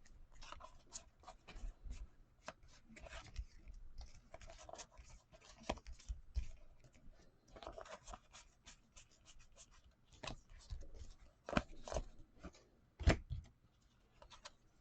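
Faint scattered clicks and rustles of trading cards being handled and slid against one another, with a sharper tap about thirteen seconds in.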